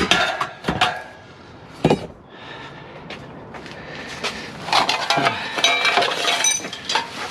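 Pieces of scrap steel clanking and clattering as they are handled and tossed onto a pile: a few sharp metal knocks in the first two seconds, then a busier run of clinks and clanks in the second half.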